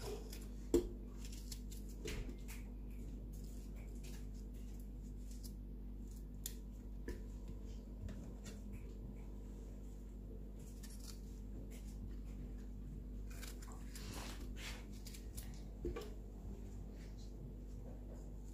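Faint handling sounds of strawberries being torn up by hand and dropped into a plastic blender jug: scattered soft clicks and taps over a steady low hum.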